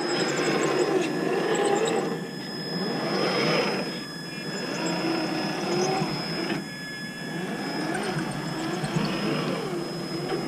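Traxxas TRX-4 Defender RC crawler's electric motor and gearbox whining as it drives up a sand hill. The pitch rises and falls with the throttle in several surges.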